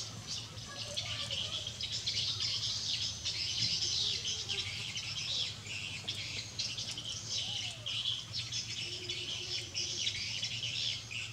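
Many small birds chirping and twittering continuously, a dense high-pitched chorus.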